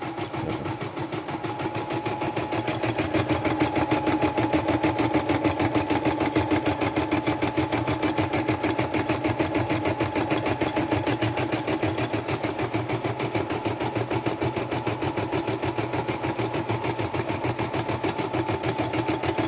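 YOKO portable computerised embroidery machine stitching a design: a fast, even run of needle strokes over a steady motor hum, getting louder over the first few seconds as it comes up to speed.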